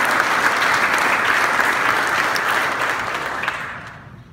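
Audience applauding, the clapping tapering off and dying away near the end.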